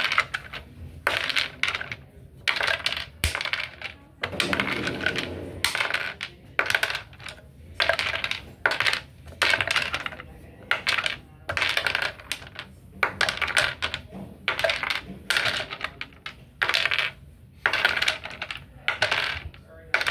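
Small wooden cubes of a Box and Block Test clattering, one after another about once or twice a second, as they are picked from a pile and dropped over the partition onto the wooden floor of the other compartment.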